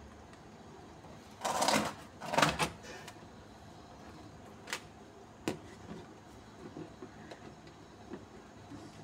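Handling noises: two brief scraping rustles about one and a half and two and a half seconds in, then a few light clicks and knocks as a plastic box with a perforated lid is handled.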